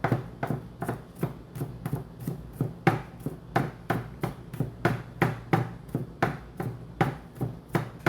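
Kitchen knife mincing garlic on a cutting board: quick, evenly spaced chops, about three a second.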